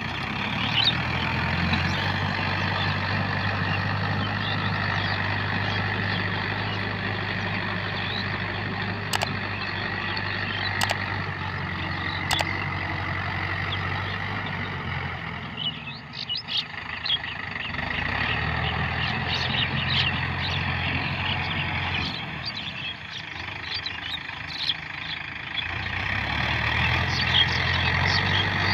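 Mahindra Yuvo Tech Plus 575 DI 4WD tractor's diesel engine running steadily under load while driving a rotavator through dry field soil, with a steady high whine alongside. The engine sound fades twice as the tractor draws away and then swells again. Birds chirp repeatedly in the second half.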